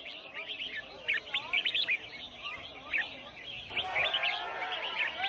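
Many small songbirds chirping and twittering over each other in quick, overlapping calls. People's voices join in the background from about four seconds in.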